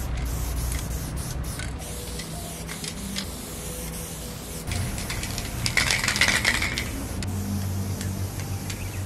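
Aerosol spray paint can hissing in repeated short bursts as paint is sprayed onto a wall. There is a louder stretch of hiss with clicking about six seconds in.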